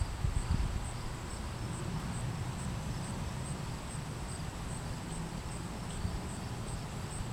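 Insects chirping in a steady, high, evenly pulsed rhythm of about two chirps a second, over a low steady rumble.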